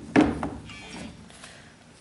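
Sneakers being handled and turned on a cardboard shoebox: one sharp thunk just after the start, then quieter rubbing and rustle as the pair is moved.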